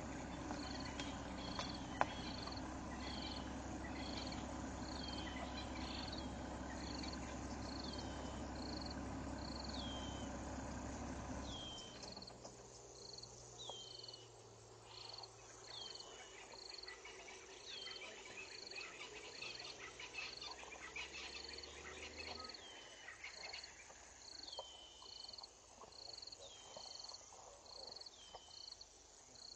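A high-pitched animal call repeats evenly, about once every 0.8 s, over quiet bush ambience. A steady low hum cuts off about twelve seconds in, and a single sharp click comes about two seconds in.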